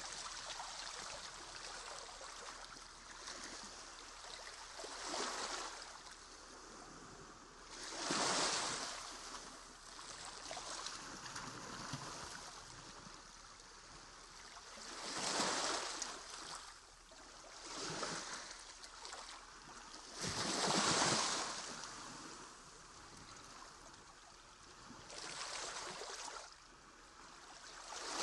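Soft water washing and splashing, with louder swells of splashing every few seconds.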